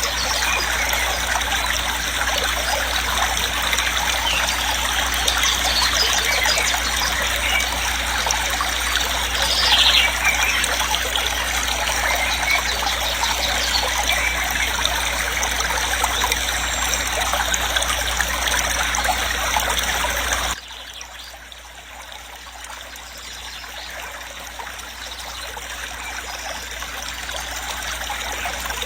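Waterfall rushing in a steady wash of noise. About two-thirds of the way through it drops suddenly in level, then builds back up gradually.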